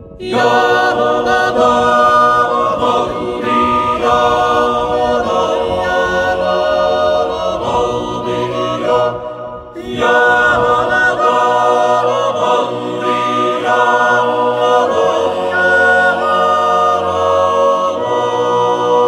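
Background music of choral singing: sustained, layered voices over a low held drone, dipping briefly about halfway through before resuming.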